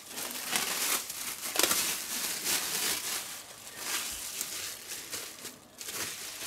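Clear plastic wrap crinkling and rustling unevenly as it is peeled off a roast by hand.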